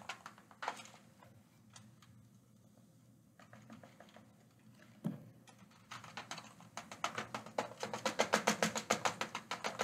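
Light clicks and soft rustling as baking soda is poured from a cardboard box through a plastic funnel into a foil-wrapped bottle. About six seconds in, a fast, even run of light taps and rattles begins as the funnel is jiggled in the bottle neck to work the powder through.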